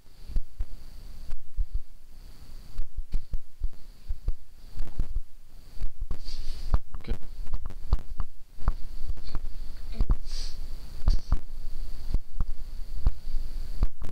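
Irregular low thumps and knocks from handling close to the microphone, with a faint steady high whine underneath.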